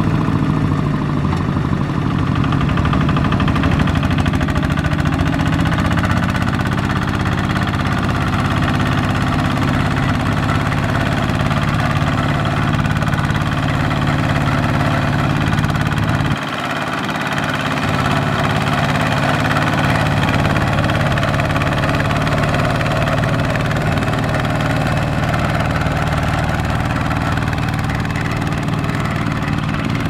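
Single-cylinder diesel engine of a two-wheel walking tractor running steadily with a knocking beat while it pulls a trailer of rice sacks through deep mud. The sound dips briefly about halfway through, then carries on as before.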